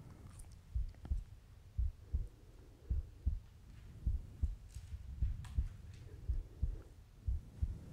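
Low, dull thumps in close pairs like a heartbeat, repeating about once a second over a faint hum, from the opening of a played video.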